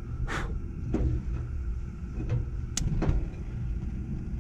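Built-in KitchenAid gas grill being lit: a few sharp clicks and short hissing bursts from the knob and burner over a low steady rumble, as the burner catches with a blue flame.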